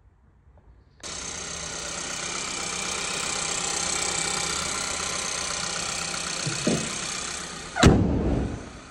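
Audi A1's engine starting up abruptly and idling steadily, as after the oil is refilled. A loud thump comes near the end.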